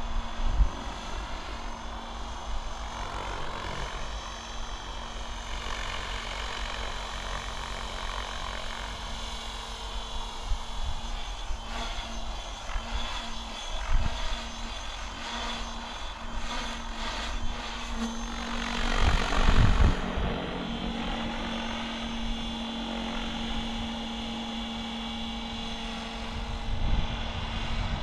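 Mikado Logo 700 electric RC helicopter flying: a steady motor and rotor whine whose pitch slides up and down as it manoeuvres. It is loudest about two-thirds of the way in as it passes close, and the high part of the whine drops away just after.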